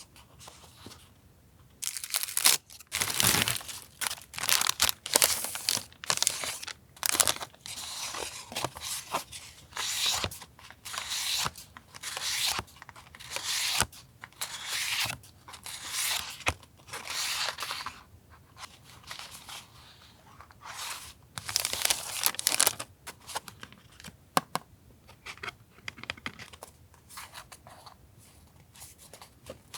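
Paper being handled: a run of crisp rustling, tearing sounds, each about a second long, with short pauses between them.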